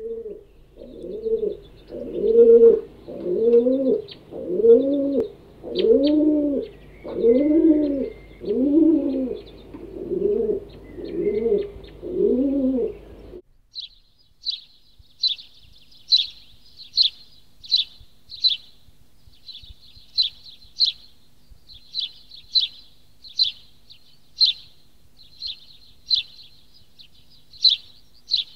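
Domestic pigeon cooing: about ten rolling coos, each rising and falling, with faint bird chirps behind. About halfway through it cuts to a house sparrow chirping, one short high chirp about every second.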